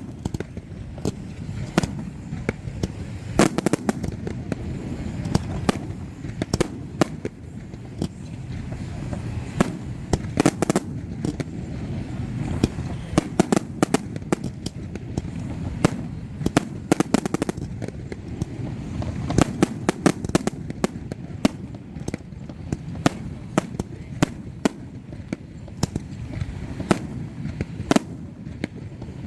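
Fireworks display: a rapid, irregular run of sharp bangs and crackles, several a second at times, over a continuous low rumble.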